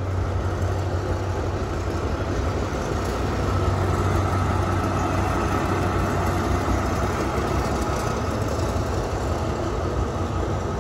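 Diesel locomotive engine running with a steady low drone, swelling a little louder about four seconds in.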